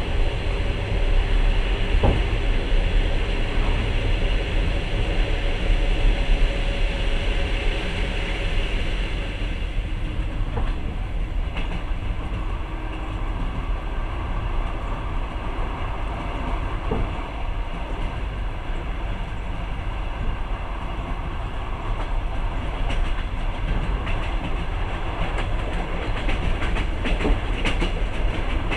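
Passenger train running at speed, heard from inside a carriage: a steady, heavy rumble of wheels on rails with a few sharp clicks from the track. A higher hiss eases off about a third of the way through.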